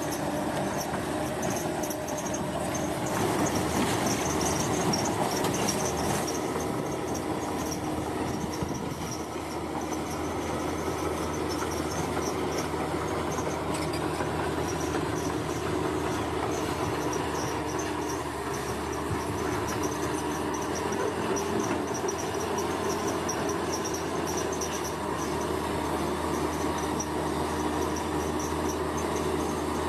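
Heavy construction machinery engines running steadily, a continuous diesel drone with a held hum. A faint high, rapid chirring runs above it.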